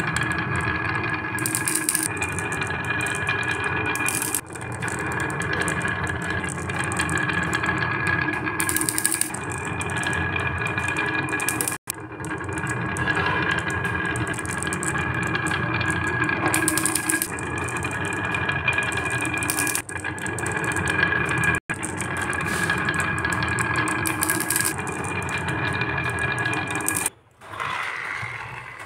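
Many glass marbles rolling down the curving grooves of a wooden marble-run slope, a steady rolling rattle that breaks off abruptly several times and fades near the end.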